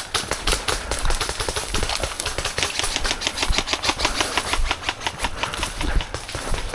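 Airsoft guns firing: a rapid run of sharp, evenly spaced clicks.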